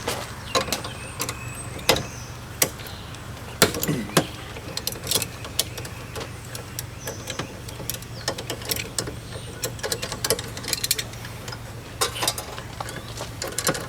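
Irregular clicks and knocks of hand tools and stiff wire being worked during electrical installation, over a steady low hum.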